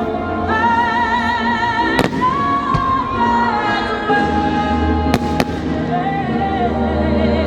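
Fireworks bursting over the show's soundtrack music: a singer holds long notes with vibrato over the accompaniment while a few sharp firework bangs go off, two of them close together about five seconds in.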